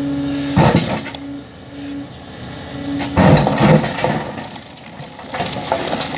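Hyundai HX480L excavator with its engine running steadily, then stone scraping and clattering against the steel bucket in loud, irregular bouts, first about half a second in and again around three seconds in.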